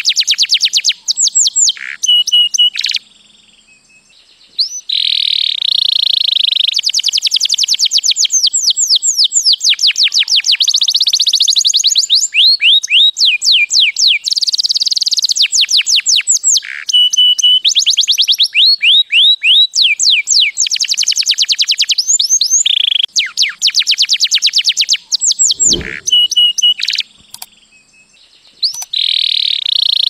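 White canary singing a long, loud song of rapid trills: runs of very fast repeated notes sweeping downward in pitch, mixed with steady high whistled notes, broken by two short pauses, about three seconds in and near the end. A brief low knock sounds shortly before the second pause.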